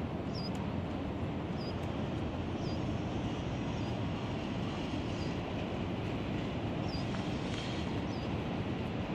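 Steady low rumble of wind and distant city noise at a high open rooftop. A bird gives short high chirps about once every second or so.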